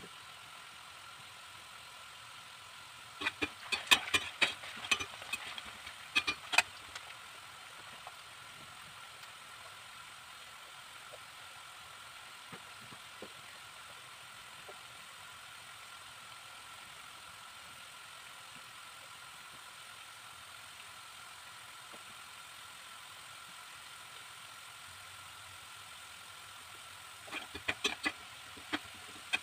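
Potato sticks frying in sunflower oil in a stainless steel pan, a steady sizzle. Clusters of sharp clicks of a utensil against the pan come a few seconds in and again near the end, as the fries are stirred.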